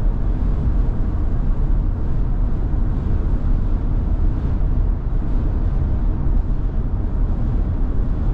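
Steady road and wind noise of a Tesla Model Y driving at highway speed, heard inside the cabin. It is a constant low rumble with no engine note.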